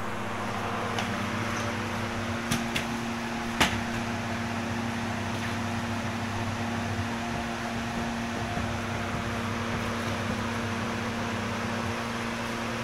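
Steady motor hum with a hiss over it, broken by a few sharp clicks about two and a half to three and a half seconds in.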